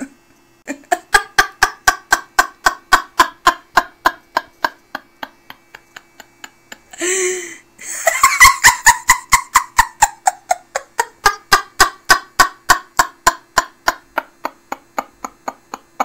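Hearty female belly laugh: fast, even 'ha-ha' pulses, about four a second, sliding down in pitch. About seven seconds in there is a sharp gasping in-breath, then a second long bout that slowly fades.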